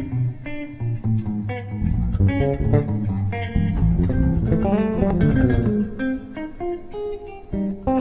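Live jazz-fusion band playing fast, busy lines: an electric bass plucked with the fingers, under quick notes on electric guitar.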